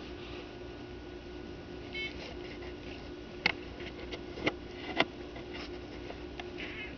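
A few sharp clicks, the loudest about three and a half, four and a half and five seconds in, over a steady low hum, with a short high chirp about two seconds in.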